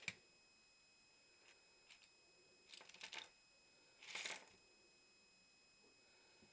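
A single sharp click at the start. Then small Lego Technic pieces slide and clatter out of a tipping Lego truck bed onto a cloth surface in short rattles, loudest about four seconds in; all of it faint.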